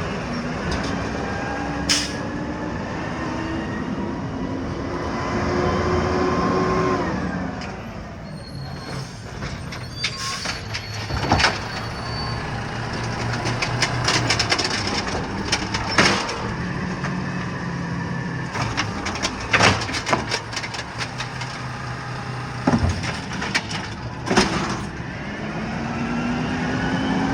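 Green waste collection truck's engine revving up over several seconds, then dropping back. This is followed by a run of sharp knocks and clanks, and the engine revs up again near the end.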